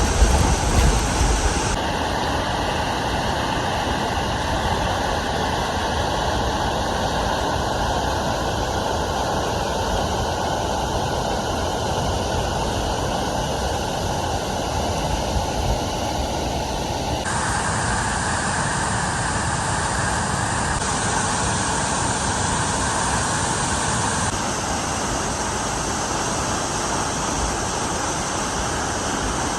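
Waterfall, a steady loud rush of falling water. Its tone shifts abruptly a few times, and there are a few low bumps at the very start.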